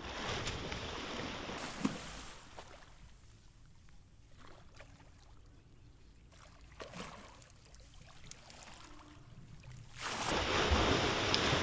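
Large fish caught in a cast net splashing in shallow water at the bank: a burst of splashing at the start with one sharp slap, a few lighter splashes in the middle, then heavy, continuous thrashing and churning of the water from about ten seconds in.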